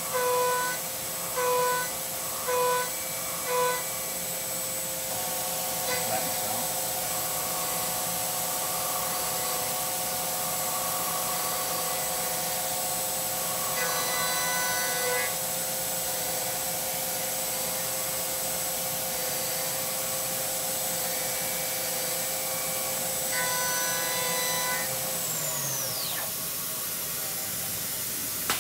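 Syil X7 CNC mill cutting aluminium with an end mill under coolant. A steady high spindle whine runs under a pitched cutting tone that comes in short pulses during the first few seconds and swells again twice. Near the end the spindle winds down, its whine falling steeply in pitch.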